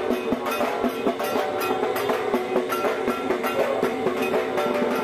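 Music with a steady percussion beat.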